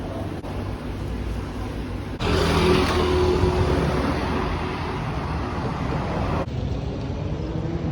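City street traffic, with cars and other vehicles running. The sound is cut together from several short clips, and the middle clip is louder, with an engine running close by.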